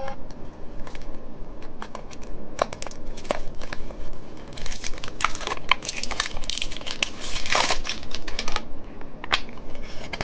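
Plastic packaging of a phone-shaped candy crinkling and crackling as it is pulled down and handled. The crinkling is densest through the middle, with scattered clicks before and after.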